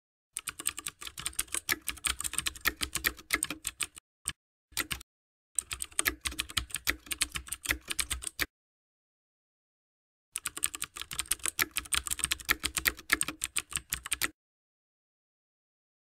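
Rapid keyboard typing keystrokes, a sound effect for text being typed on screen. The clicks come in three quick runs of about three to four seconds each, with a couple of lone clicks after the first run and dead silence between the runs.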